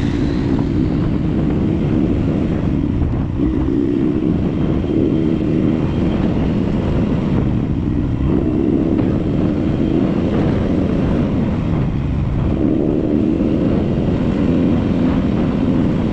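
ATV engine running steadily under way, heard loud and rough on the onboard camera.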